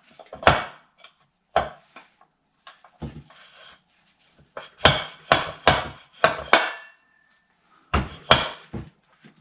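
Sharp metal clanks and knocks as parts are handled and fitted back together, about a dozen in short clusters. One knock near the middle leaves a brief ringing tone.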